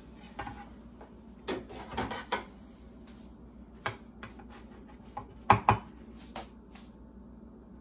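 A slotted metal spatula and a kitchen knife clinking and tapping against each other and a wooden cutting board as tortillas are lifted and laid down: scattered light knocks, the loudest a quick pair about five and a half seconds in.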